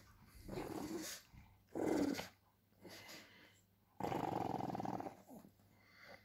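Lhasa Apso puppies growling during rough play: several short growls, then a longer growl starting suddenly about four seconds in.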